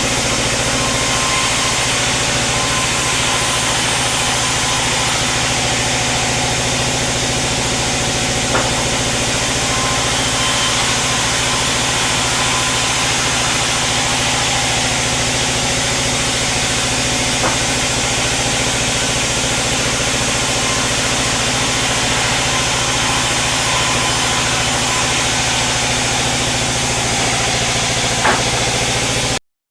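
Sawmill machinery running steadily, an even engine-like drone with a few faint clicks, cutting off suddenly near the end.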